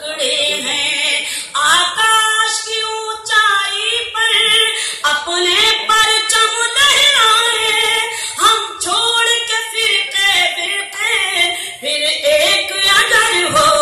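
A woman singing Urdu verse in tarannum, the melodic sung recitation of a mushaira, her solo voice carried through a stage microphone in long held phrases with short breaks.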